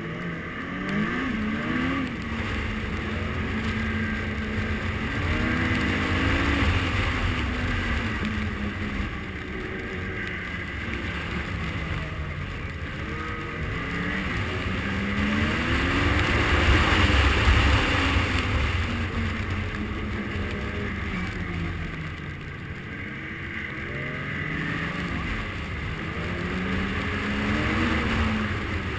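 Snowmobile engine running at speed through deep snow, its pitch rising and falling again and again as the throttle opens and eases, with wind noise over it. Loudest a little past the middle.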